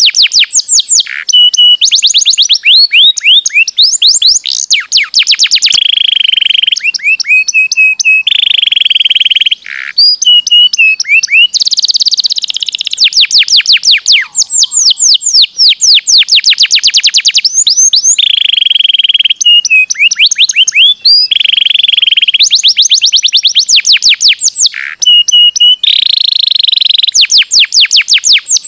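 Domestic canary singing loudly and without pause: fast trills of rapidly repeated sweeping notes, alternating with held whistled notes about a second long.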